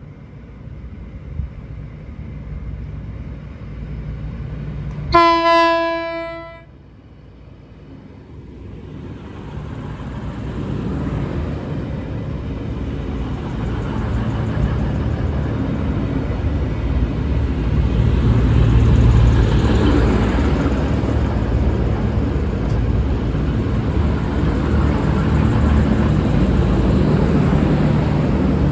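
V/Line VLocity diesel railcar train sounding one low-note horn blast of about a second and a half, roughly five seconds in. Then the train's running noise of engines and wheels grows steadily louder as it arrives at the station.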